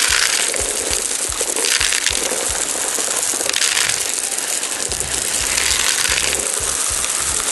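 20 mm gravel pouring from a bag onto a plastic drain pipe and the stones already around it: a dense, continuous rattle of stones clattering together, surging every second or so as the bag is tipped.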